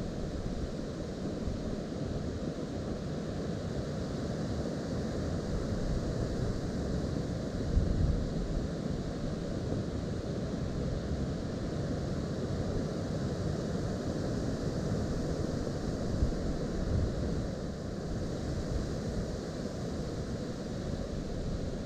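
Strong wind buffeting the microphone: a steady low rumble that swells in louder gusts about eight seconds in and again around sixteen seconds.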